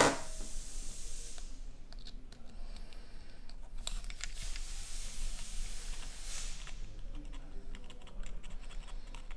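Small clicks, taps and light scraping of a thin metal blade worked against the face and combustion chambers of a bare cylinder head. A sharp knock sounds right at the start, and the ticking comes thicker near the end.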